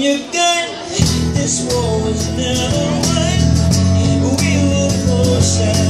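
Live acoustic band playing a song: strummed acoustic guitars, bass guitar and a man singing. About a second in the full band comes in with the bass.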